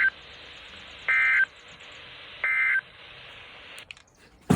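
Three short bursts of EAS SAME digital data tones, the end-of-message signal of a NOAA Weather Radio alert, about a second apart over radio hiss. A sharp click comes near the end.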